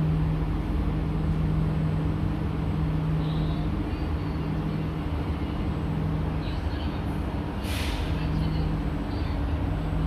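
Stationary SMRT C151C metro train dwelling at a platform with its doors open, its onboard equipment giving a steady low hum. A short hiss of air sounds about three quarters of the way through.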